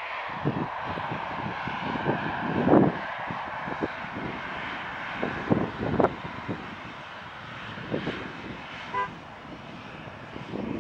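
Boeing 737-800's CFM56-7B turbofan engines running at takeoff power as the jet accelerates down the runway: a steady rushing jet noise. Irregular low thumps are mixed in, loudest about three seconds in, and a brief high tone sounds about nine seconds in.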